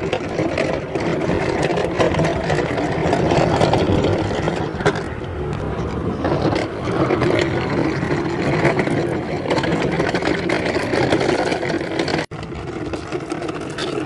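Small Henry vacuum cleaner's wheels rolling and scraping over rough pavement as it is dragged along by its hose, a continuous gritty rumble.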